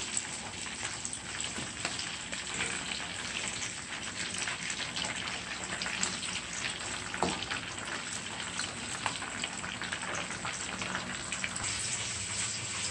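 Whole fish shallow-frying in hot oil in a nonstick frying pan as they are turned with a fork: a steady sizzle full of small crackles and pops.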